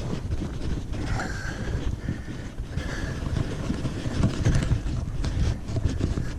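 A ridden horse walking: irregular low thumps of its hooves and tack under a steady low rumble.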